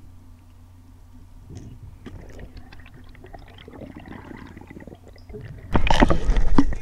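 Water sloshing and gurgling, faint at first with small clicks, then a sudden loud rush of splashing near the end.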